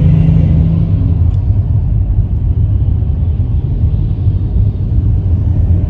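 Steady low rumble of a car's engine and tyres on the road, heard from inside the cabin while driving, with a brief low hum in the first second.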